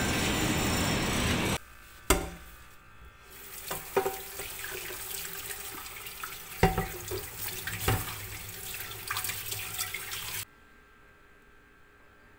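Kitchen tap running onto a nonstick frying pan in a stainless steel sink as the pan is scrubbed with a sponge, with several sharp knocks of the pan against the sink. A louder, different sound fills the first second and a half and cuts off abruptly. The water sound also stops abruptly near the end.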